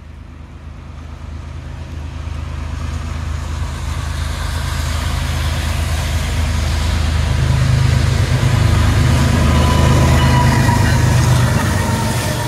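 Diesel freight locomotives, a CN ES44DC and an SD70M-2, approaching and passing close by: a deep engine rumble that grows steadily louder and peaks near the end. Thin high steady tones join in near the end.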